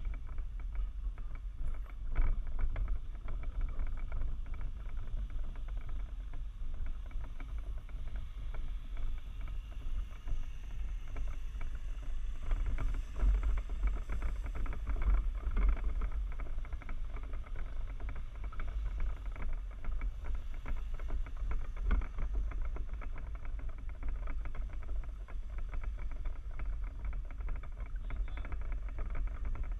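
Low, uneven rumble of a shifter kart rolling slowly over concrete, with wind buffeting the kart-mounted camera's microphone. No steady engine note can be made out.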